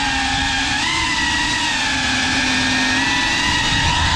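FPV quadcopter's brushless motors and propellers whining, the pitch rising briefly about a second in and otherwise holding fairly steady as the throttle changes, over a rushing low noise.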